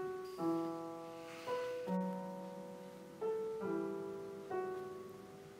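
Piano playing a slow, soft phrase: about seven notes and chords struck at uneven intervals, each left to ring and fade, dying away near the end.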